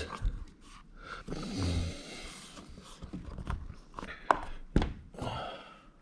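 Scattered plastic clicks and taps as hands handle and press on a closed plastic Wago Box Pro junction box, with a soft rush of noise from about one to three seconds in.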